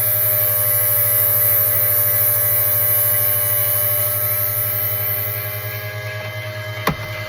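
Electric tire truer spinning a foam RC car tire, a steady motor hum and whine with a high grinding hiss from the sanding bit on the foam. The hiss stops about six seconds in while the motor keeps running, and there is one sharp click near the end.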